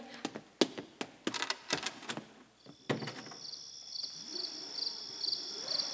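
A few sharp clicks and knocks, then from about three seconds in a steady, evenly pulsed high chirping of crickets, a night-time sound effect.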